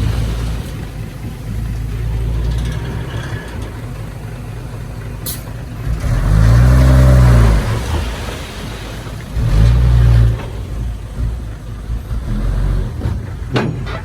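Diesel engine of heavy earthmoving machinery (dump truck or bulldozer) running steadily, revving up hard twice: a longer rise and fall about six seconds in and a shorter one about nine and a half seconds in. There is a sharp click about five seconds in.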